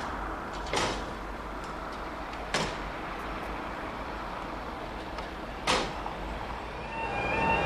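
Three sharp metallic clanks, the last the loudest, as a railway worker works the hand lever on level-crossing equipment. Near the end the crossing's warbling warning alarm starts, a repeating rising tone.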